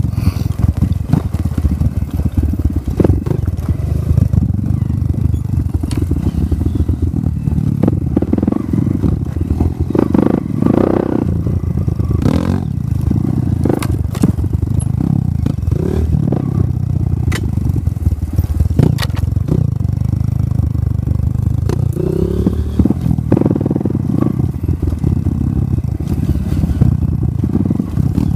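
Off-road motorcycle engine running steadily while riding over rough, rocky ground, with frequent knocks and rattles from the bike jolting over the stones.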